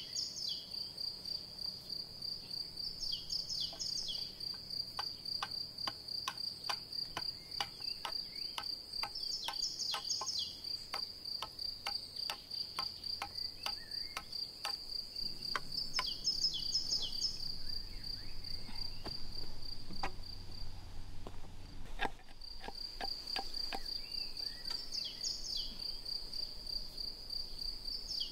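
Insects chirring steadily at a high pitch, with a brief higher call every six seconds or so. Through the middle runs a series of sharp taps, one or two a second, from a blade shaving and cutting a wooden pole, with one harder knock about two-thirds of the way through.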